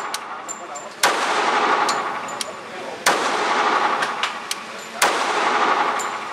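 Three .45 ACP pistol shots from a Sig Sauer P220, about two seconds apart, each with a long echo that rings and dies away in the indoor range.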